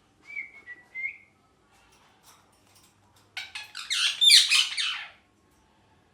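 Pet ringneck parrot giving a short whistle, rising slightly at its end. About three seconds later comes a loud burst of rapid, harsh, screechy calls lasting nearly two seconds.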